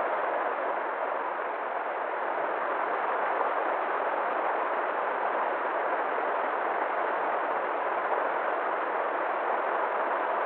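River water flowing in a steady, even rush, with no change in level.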